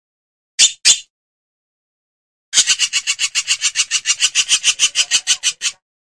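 Hornbill calling with harsh, rasping notes: two short rasps, then about a second later a fast even run of rasping pulses, about nine a second, lasting around three seconds.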